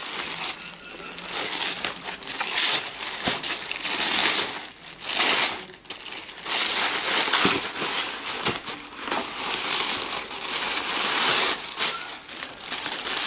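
Black plastic bag and tissue paper crinkling and rustling in irregular bursts as a small child handles and pulls at a wrapped parcel in a cardboard box.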